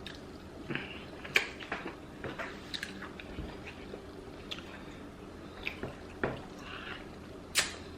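Close-up eating sounds of fufu with egusi soup: wet mouth smacks and chewing, with scattered short clicks at irregular intervals, the loudest near the end.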